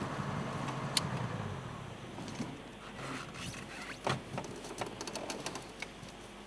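A safari vehicle's engine idles low and fades out within the first second and a half. Then come irregular crackles, snaps and rattles as an elephant shakes a torchwood tree to bring its fruit down, branches and twigs cracking and fruit dropping.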